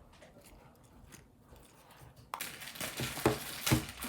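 A quiet couple of seconds, then rustling, crinkling handling noise with two sharp louder knocks near the end.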